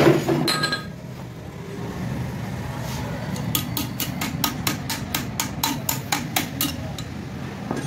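A hammer tapping on the cylinder of a small 70cc motorcycle engine: a couple of heavier knocks at the start, then an even run of about a dozen light taps, about four a second, from around three and a half seconds to nearly seven seconds in.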